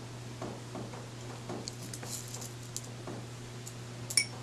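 Fingers pressing and scratching potting soil and small pebbles around a succulent in a glass jar: soft, scattered little crackles, then one sharp clink near the end.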